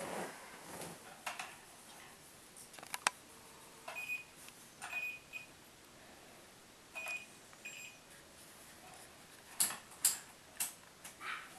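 Digital camera beeping briefly several times as it focuses and clicking its shutter, with scattered sharp clicks and handling noise; a quick run of three louder clicks near the end.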